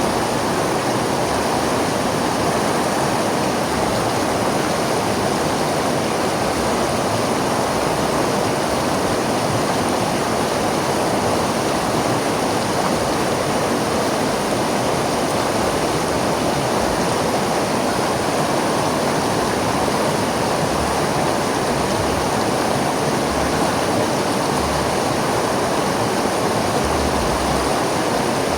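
River water flowing steadily over rocks, a constant rushing with no breaks.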